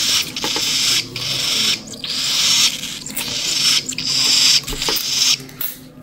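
Cockatiel chicks giving raspy, hissing begging calls in a run of repeated bursts, each about half a second to a second long, as they wait to be hand-fed.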